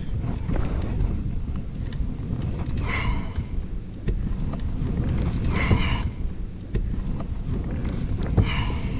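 Wind buffeting the microphone in a steady low rumble, with three short, brighter sounds about three, six and eight and a half seconds in.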